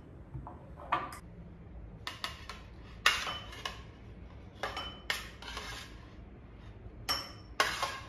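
Table knife scraping and tapping on a ceramic plate in short, irregular strokes, cutting bread into cubes and sliding them off into a bowl.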